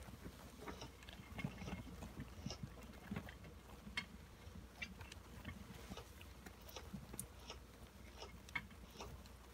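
Hamsters scrabbling in wood-shaving bedding and at a cabbage leaf: faint rustling with many small scattered clicks and ticks.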